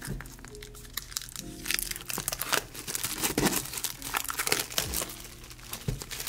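Plastic shrink wrap crinkling and tearing as it is peeled off a cardboard manga box set, the crackling busiest in the middle, over background music.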